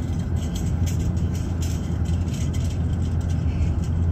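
Steady low rumble of a moving vehicle heard from inside the cabin: engine and tyre noise on the road.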